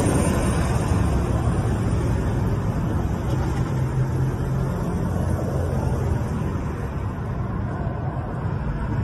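Steady road traffic noise: passing cars, easing slightly near the end.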